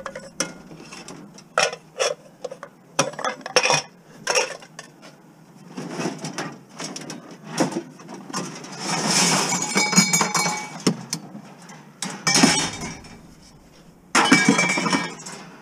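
Empty beverage bottles and containers being handled and sorted: a string of short clinks and knocks, with a few longer stretches of rattling and rustling.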